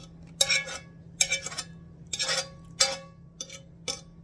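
A metal fork scraping and knocking against a metal pan, about six sharp clinks with a brief ring, as cooked spinach is pushed out of the pan into a bowl.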